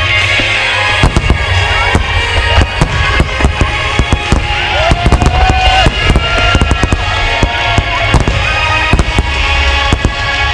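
Large fireworks display shells bursting in rapid, irregular succession, with a deep rumble under the bangs. Music with a singing voice plays underneath.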